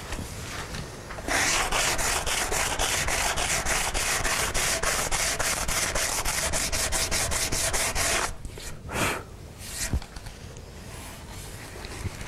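Sandpaper on a cork sanding block rubbed back and forth over hardened wood filler on the corner of a wooden chair frame, levelling the filled chip flush with the wood. The strokes come fast and even, about five or six a second, from about a second in until about eight seconds in, followed by a couple of separate strokes.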